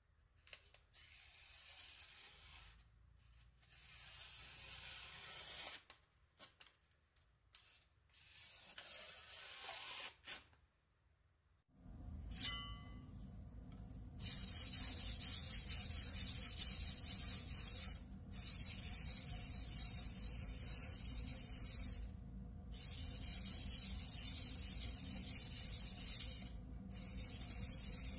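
Newspaper crinkling and rustling in short, broken bouts as a kitchen knife is wrapped in it. About twelve seconds in, the sound cuts to a louder, steady rasping rub that comes in long stretches with brief pauses.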